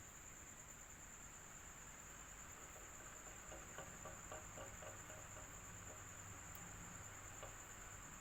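Electric fan running quietly and steadily, with a constant high-pitched tone over it. A short run of faint rapid ticks comes a little past the middle.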